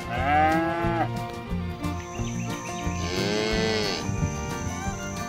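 A cow mooing twice: a call about a second long at the start, and a second one about three seconds in that rises and falls in pitch.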